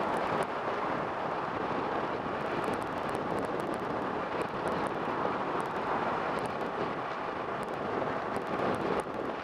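Steady wind rush buffeting the microphone on a Kawasaki Ninja 650 motorcycle riding at speed, with the bike's running noise blended underneath.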